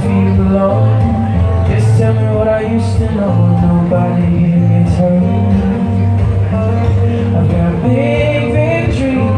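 A man singing live over his own strummed acoustic guitar, amplified through a PA.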